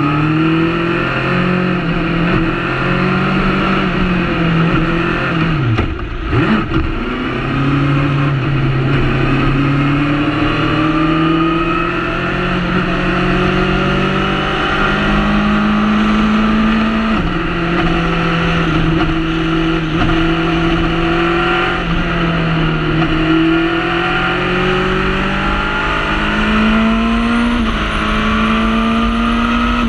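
Formula Predator's single-seater's Honda Hornet motorcycle engine, heard from on board, running hard under acceleration. The engine note climbs in pitch and drops abruptly at each gear change, with a brief lift about six seconds in.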